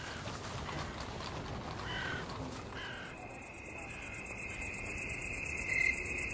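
Ambient night sounds: a few short bird caws, then from about three seconds in a fast, evenly pulsing insect trill that grows louder.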